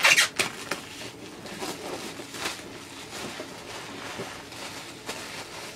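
Model kit packaging torn and rustled open by hand: a sharp tear right at the start, then scattered crinkling and rustling of wrapping and cardboard.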